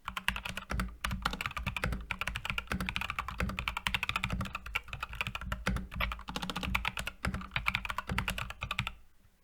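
Skyloong Geek SK64S mechanical keyboard with optical switches and PBT keycaps being typed on quickly: a dense, continuous run of key clicks with a couple of brief pauses, stopping shortly before the end.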